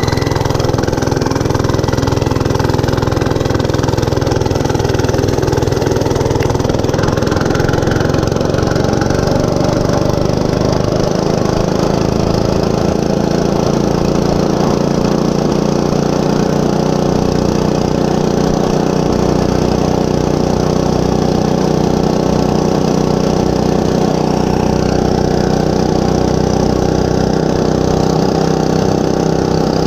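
Monster Moto 105cc mini bike's small single-cylinder four-stroke engine running steadily; its pitch rises a little over the first ten seconds or so, then holds.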